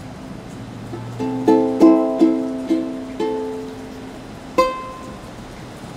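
Ukulele played solo: a chord rings and fades, then about a second in comes a quick run of six strummed chords, and a single strum near the end is left to ring out.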